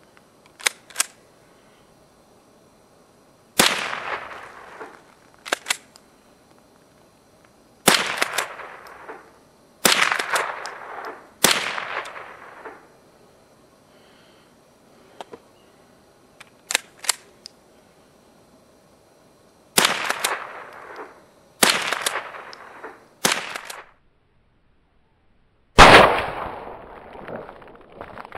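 Remington Model 12 .22 rimfire pump-action rifle firing about seven shots at uneven intervals, each a sharp crack that fades over about a second. Between some shots comes the quick double clack of the slide being worked. The last shot is the loudest.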